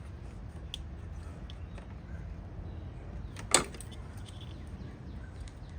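Hand work on a car's PCV hose and its spring hose clamps: faint scattered small clicks, and one sharp metallic click about three and a half seconds in, over a steady low rumble.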